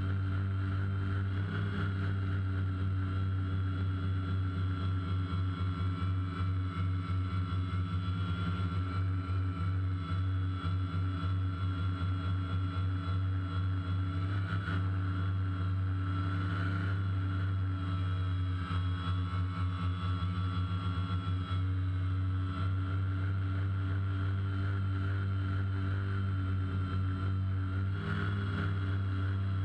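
The four electric motors and propellers of a DJI Phantom quadcopter droning at a steady pitch while it holds a near-hover, heard through the GoPro camera mounted on the drone itself.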